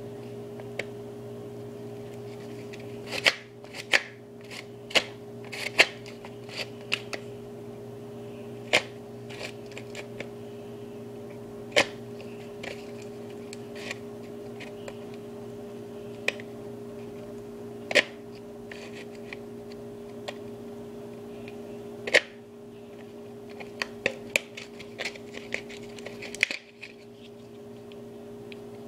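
A cardboard replica Glock 17 pistol being handled, its slide moved back and forth: scattered sharp clicks and taps, some in quick clusters, over a steady low hum.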